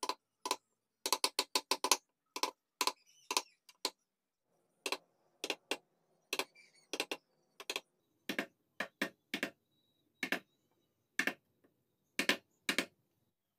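Sharp taps of a carving chisel being driven into mahogany to cut the relief. They come in quick runs at first, then as single taps with pauses between them, and stop shortly before the end.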